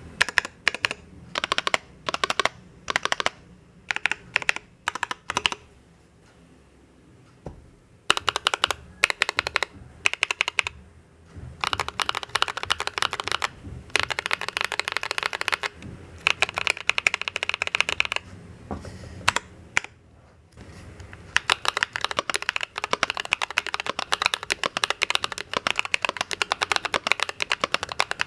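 Typing on an Idobao ID80 v1 mechanical keyboard fitted with stock Akko POM Pink linear switches. The keystrokes come in short bursts with pauses, and there is a quiet gap about six seconds in. Over the last third the typing runs fast and continuous.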